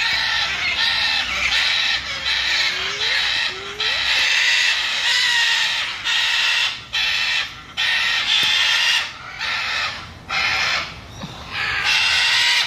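Loud, harsh bird squawks, one after another with short breaks, and a few faint short rising chirps underneath.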